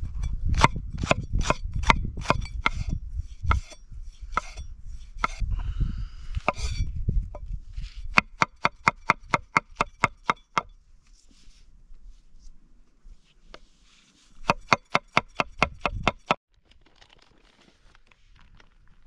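Cleaver-style knife chopping a jalapeño and mushrooms on a wooden cutting board: quick knife strikes on the board, with two fast, even runs of about six strokes a second, around eight and fifteen seconds in, and the chopping stops a little after sixteen seconds.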